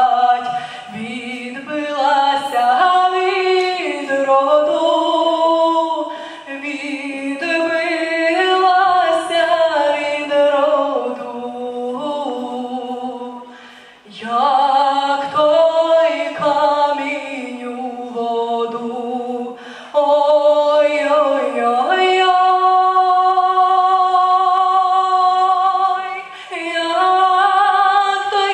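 A girl singing solo into a handheld microphone, her voice moving through a melody and then holding one long steady note about three-quarters of the way through.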